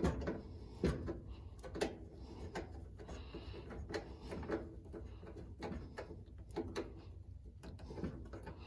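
Irregular light clicks and taps of small parts being handled while the grounding lug of a washing machine's lid switch is fitted into place.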